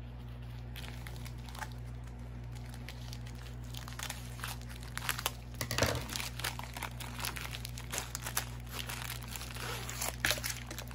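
Plastic packaging of a diamond painting kit crinkling and rustling as it is unwrapped, in scattered crackles that grow busier about four seconds in, over a steady low hum.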